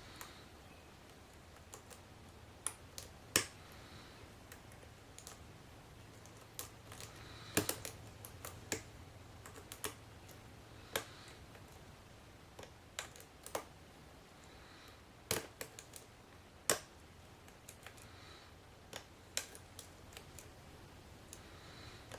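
Irregular small metallic clicks from a hook pick working the pins of a brass pin-tumbler padlock under a tension wrench, as pins are lifted and set one by one against its spool pins. A few clicks stand out much louder than the rest.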